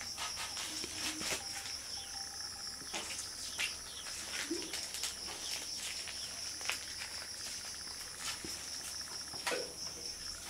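Crickets chirring steadily in a high, slightly pulsing trill, with scattered light clicks and scuffs as the kittens move about and paw on the concrete floor.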